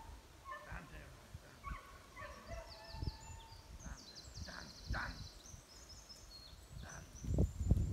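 Small birds singing, short chirps with a fast high trill about three seconds in, over low rumbling on the microphone that grows louder near the end.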